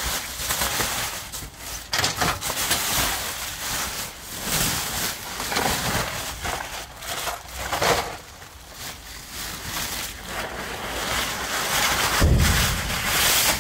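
Plastic bags and plastic packaging film rustling and crinkling, with many short crackles, as hands rummage through them. A low rumble joins near the end.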